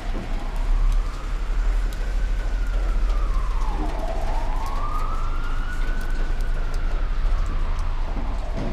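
Emergency vehicle siren wailing, its pitch rising and falling slowly about every four seconds, over a steady low street rumble.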